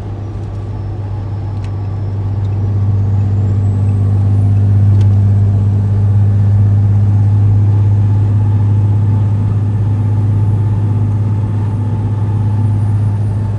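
Steady low drone of a Ram 5500 diesel truck driving at highway speed, heard from inside the cab.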